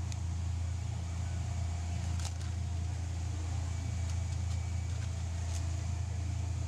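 A steady low rumble, with a few faint light clicks about two seconds in and again near the end.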